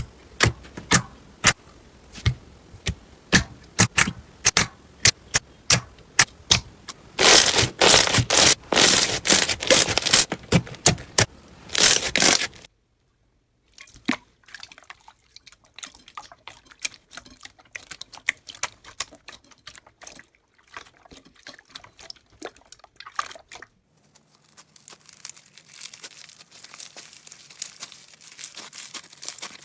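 Slime being squeezed and poked, with a run of sharp pops and clicks that thickens into a dense crackle, then breaks off. After a moment of silence come softer, sparser crackles, and near the end a quieter, steady rubbing hiss.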